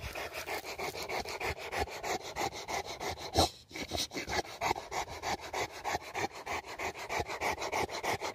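Rottweiler in a plastic basket muzzle panting close up, an even run of about four to five breaths a second. A brief knock comes about three and a half seconds in, followed by a short pause.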